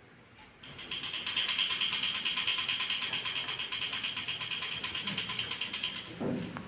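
Small brass puja hand bell rung rapidly and without pause, a bright, steady ringing that starts about half a second in and stops shortly before the end.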